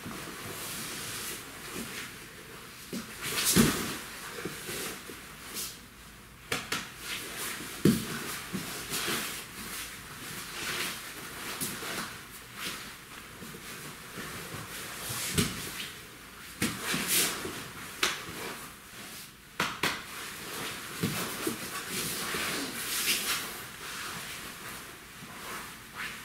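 Two grapplers in gis scrambling on a foam mat: fabric rustling and sliding, with scattered thumps of bodies and hands landing on the mat, the loudest about three and a half seconds and eight seconds in.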